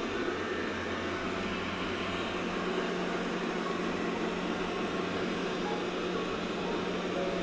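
Roborock robot vacuum running steadily while cleaning, its suction motor giving an even whirring noise with a constant low hum.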